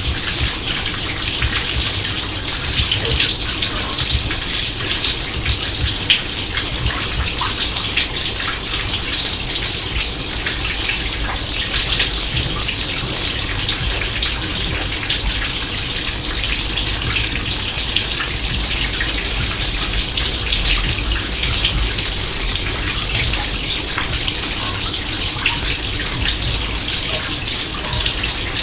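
Steady rush of water running at an overflowing kitchen sink, a continuous hiss with no breaks.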